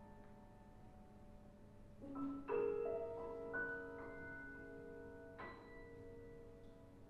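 Grand piano played softly: a held chord dies away, then about two seconds in several notes are struck one after another and left ringing, and one more high note is struck about five and a half seconds in.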